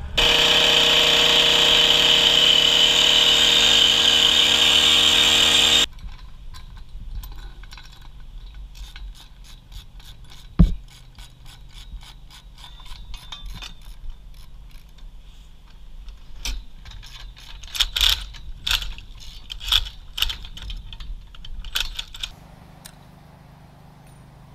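Cordless Makita impact driver hammering a scaffold coupler bolt tight with a loud, steady rattle for about six seconds, then stopping. After that come many sharp metallic clicks and clinks from the steel couplers and tubes being handled and driven in short runs, with one heavier knock about ten seconds in and a louder cluster of clicks near the end.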